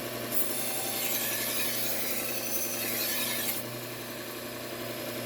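Slow-speed Bucktool belt grinder running with a steady hum, a knife blade pressed against the moving abrasive belt for about three seconds from just after the start, giving a gritty hiss. The blade then comes off and the belt runs on alone.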